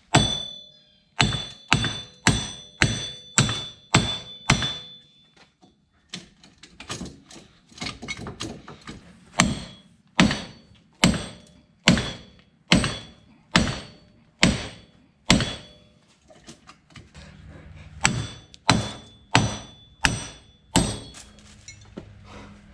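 Heavy 4-pound mallet hammering a rusted, seized front wheel hub bearing to drive it out of the steering knuckle. Sharp metal blows come in three runs of about two a second, with short pauses between runs. The early blows ring.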